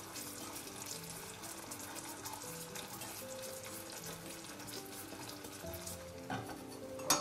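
Sugar and water heating in a small stainless steel saucepan over a gas flame, sizzling with a fine crackle while stirred with a wooden spoon, over soft background music. A sharp knock sounds near the end.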